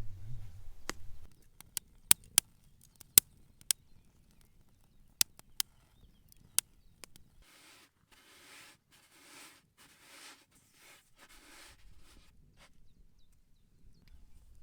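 A run of sharp, separate clicks and knocks, then six even swishing strokes of a rolling pin working fresh pasta dough.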